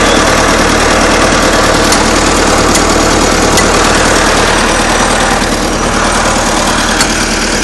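Tracked vehicle's engine running steadily at idle, loud and close. A few sharp taps sound over it, from a hammer on the snow-caked track.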